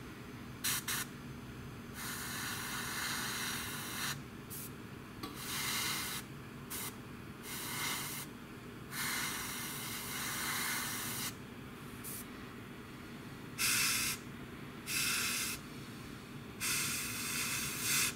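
Airbrush spraying semi-matt clear coat in a run of on-off bursts of hiss. Some bursts are short blips and others last several seconds, about ten in all.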